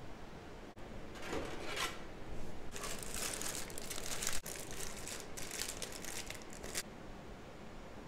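Clear plastic bag crinkling as hands handle it and pull it about inside a PC case: a short burst a little over a second in, then a longer run of crinkling from about three seconds in until nearly seven.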